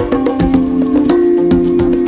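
Background music: a quick, steady percussion beat over held melodic notes that change every half second or so.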